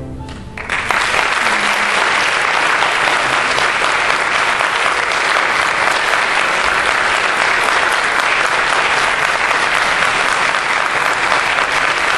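The last chord of a string orchestra fades out, then audience applause breaks out just under a second in and holds steady.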